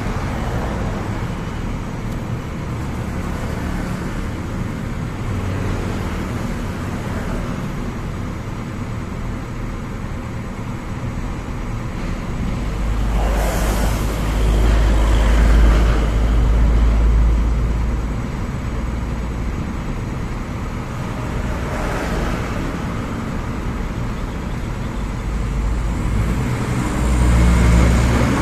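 Kobelco SK200-8 hydraulic excavator's diesel engine running as the machine works its boom and bucket; the engine note grows heavier under load about halfway through and again near the end, with a couple of brief rushing noises.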